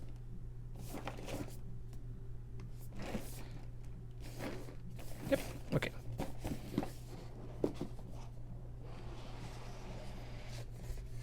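Cardboard puzzle box and packaging being handled: irregular soft rustles, scrapes and taps, over a steady low hum.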